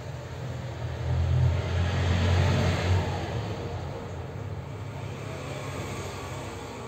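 Hot air gun blowing steadily, a rushing hiss over a low hum that swells about a second in and eases after about three seconds. It is heating a phone circuit board from below to melt the solder holding a battery connector.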